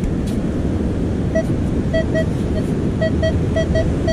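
Minelab Manticore metal detector giving a run of short, identical beeps from about a second and a half in, several in quick pairs as the coil is swept back and forth over a target. Wind rumbles on the microphone throughout.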